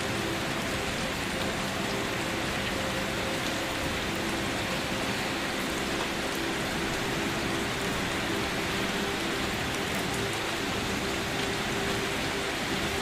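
Steady, gentle rain falling on a surface, an even hiss of many drops with no breaks, and a few faint steady low tones beneath it.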